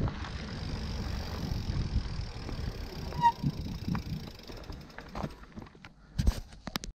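Specialized Turbo Levo SL electric mountain bike riding over a trail: steady tyre rumble and rattle with wind on the microphone. A brief squeak a little past three seconds, then the rumble eases and a few sharp knocks come near the end.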